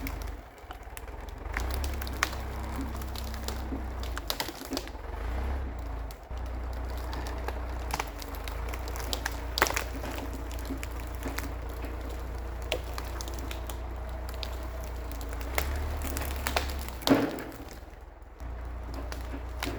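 Case 680G backhoe's diesel engine running low and steady, its level shifting a few times, with scattered sharp cracks and clunks. The loudest crack comes about 17 seconds in.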